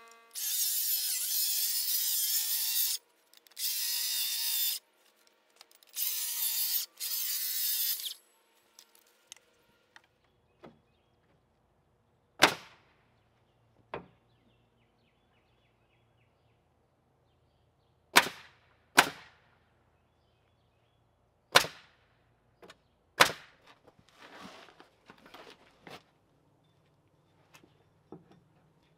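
A power tool runs in three bursts of one to three seconds each. Then come about six sharp, separate knocks spread over the next dozen seconds, with some lighter clatter near the end.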